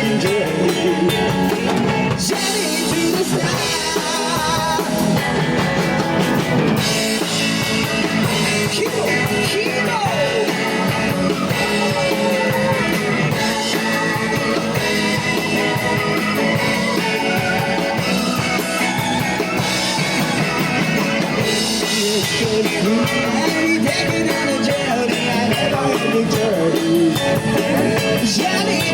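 Live rock band playing a cover song, with a drum kit, guitar and singing.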